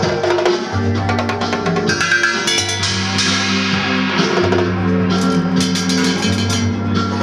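Live improvised band music: a keyboard holding low notes that change every couple of seconds, under hand-played drums and other struck percussion with many quick hits.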